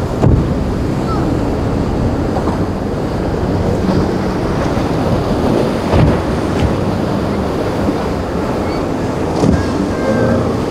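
Rough inlet waves breaking and heavy wind buffeting the microphone, with the steady drone of a center-console boat's twin Yamaha 150 outboards running through the chop. A few loud thumps stand out, about a second apart at the start and again near the middle and end.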